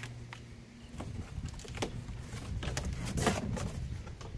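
Cardboard packaging rustling and scraping as a chainsaw is lifted out of its box, with scattered clicks and a louder knock about three seconds in.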